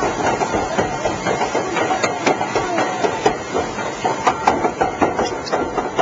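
Lift conveyor of a river-rapids raft ride carrying the raft uphill: a steady mechanical running noise with scattered sharp clacks.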